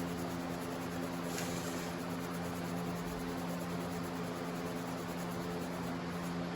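Steady low hum with a faint even hiss and no distinct events: background room tone.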